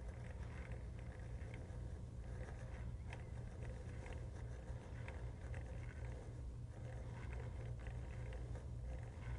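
Hand-cranked drill with a 3/16-inch bit boring an axle hole through a balsa wood block: faint, irregular crunching and ticking as the bit cuts and the crank turns, over a steady low hum.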